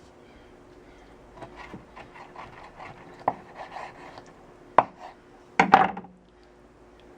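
A dog chewing and mouthing a piece of raw chicken liver: a run of soft, quick wet smacks and clicks, a few sharper clicks, and a louder burst near the end.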